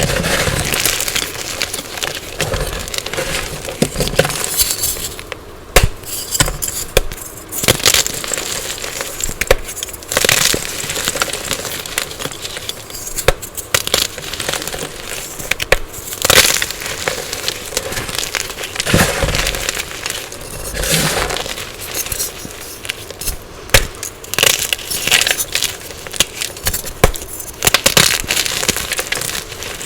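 Dyed gym chalk being crunched and crushed, a dense, irregular run of sharp crunches and crumbling crackles.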